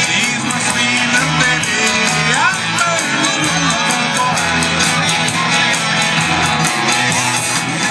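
Live band playing a song on an amplified stage: guitars over a drum kit keeping a steady beat, with cymbal strokes running through.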